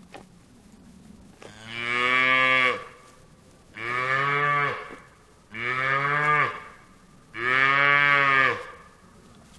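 A cow mooing four times, each call about a second long and evenly spaced.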